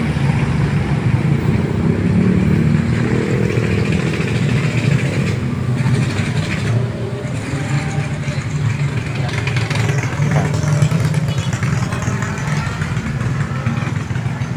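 Steady low engine rumble of road vehicles, motorcycles among them, at a level crossing.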